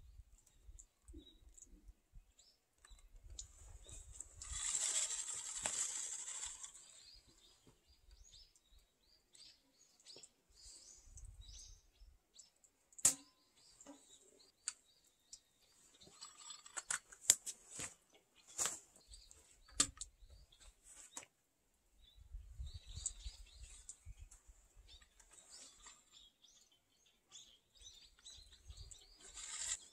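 Steel tape measure being worked along a peeled log: the blade rasps as it is drawn out and reeled back, and there are several sharp clicks around the middle.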